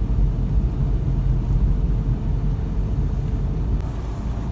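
A car on the move: a steady low rumble of engine and road noise, with a faint steady hum that stops near the end.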